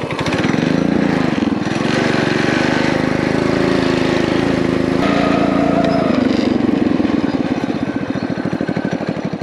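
HiSun 196cc single-cylinder four-stroke engine of a Coleman BT200X mini bike, fitted with a Mikuni VM22 clone carburetor, running under load on a test ride. The engine note climbs and falls as the throttle is worked. On this carburetor setting the bike bogs down above about a third to half throttle.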